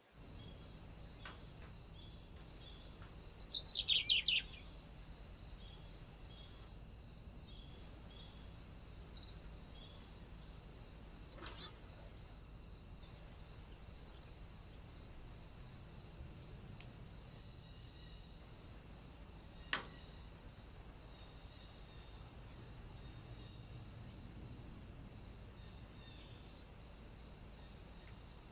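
Small birds calling at a feeder: a quick burst of about half a dozen descending chirps about four seconds in, and a shorter call near twelve seconds, with a single sharp click near twenty seconds. Under them is a steady high hiss with a faint regular pulsing, picked up by a trail camera's microphone.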